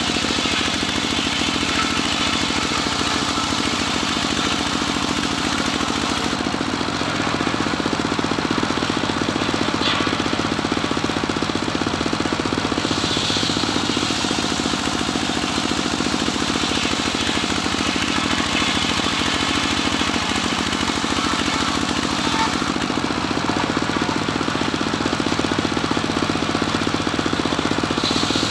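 Homemade engine-driven circular sawmill running steadily while its blade saws a cempaka log into boards. A harsher, higher saw noise rises near the start, about halfway through and again near the end as the blade works through the wood.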